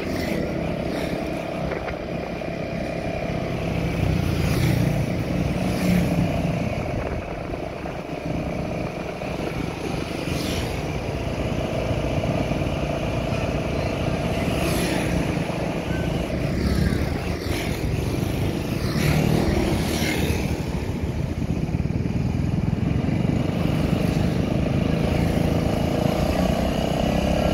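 Motorcycle ridden at a steady cruise, its engine running evenly under wind and road noise, heard from the pillion seat, with a few brief swishes as traffic passes.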